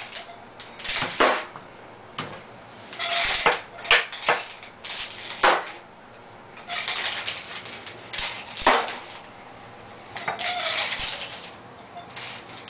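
Small wooden toy pieces clattering and rattling against each other and a plastic tray as a child handles them, in irregular bursts with quieter gaps between.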